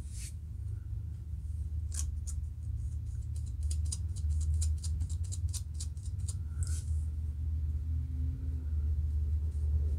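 Fingernails and the tip of a plastic comb scratching dandruff flakes loose from a dry scalp between locs: short, sharp scratches, a few single ones, then a quick run of about five a second from roughly three and a half to six and a half seconds in. A steady low hum runs underneath.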